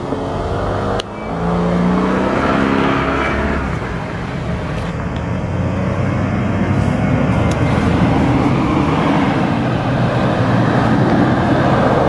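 Off-road 4x4 engines revving under load as mud-covered vehicles churn past through mud and grass, one after another. One engine's pitch rises about two seconds in, and there is a sharp click at about a second.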